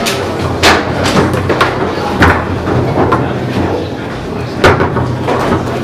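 Table football being played: sharp, irregular knocks of the ball struck by the plastic players and hitting the table walls, with the metal rods clacking and rattling between shots. Background chatter runs underneath.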